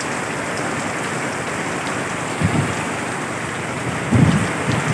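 Heavy rain falling steadily, a dense even hiss, with short low rumbles about halfway through and again near the end.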